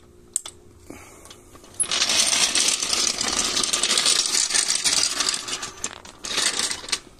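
Steel hydraulic floor jack rolled and dragged across rough pavement, its wheels and frame rattling and scraping. The rattling starts about two seconds in and lasts about four seconds, with a shorter burst near the end.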